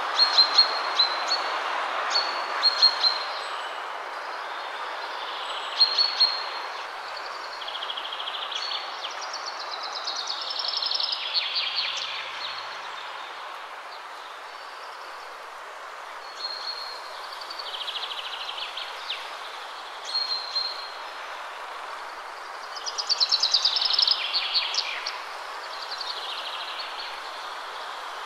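Birds chirping and trilling over a steady background hiss, with the busiest bursts of rapid trills about ten seconds in and again near the end.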